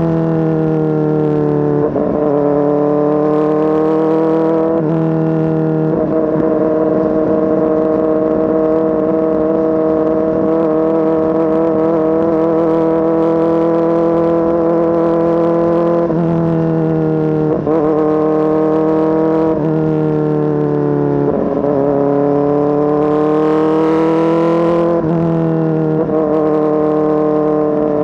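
Kawasaki ZX-4RR's 399 cc inline-four running through an SC Project S1 exhaust, loud throughout. Its pitch climbs and drops off several times, as with gear changes, and holds steady for a long stretch through the middle.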